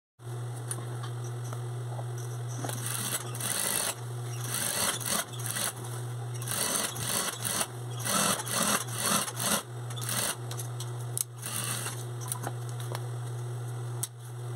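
Industrial straight-stitch sewing machine sewing a curtain hem in several short runs of rapid stitching over a steady low motor hum, stopping near the end.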